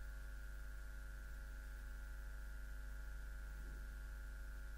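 Steady electrical hum with a thin high whine over a low room tone; no clear event stands out.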